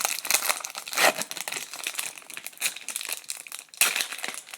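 A hockey card pack's wrapper being torn open and crinkled by hand, a dense run of crackles.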